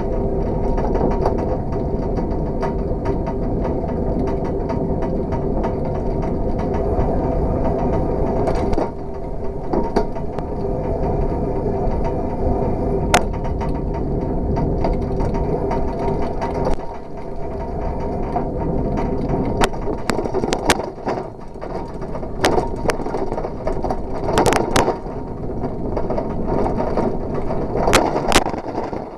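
Bicycle riding along asphalt: a steady rolling noise with mechanical clicking from the chain and freewheel. Past the halfway point the noise breaks up and a run of sharp clicks comes through.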